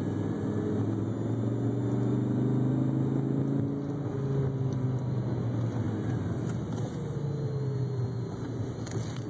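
A steady low buzz from a car, with several pitches sounding together that drift up and down a little.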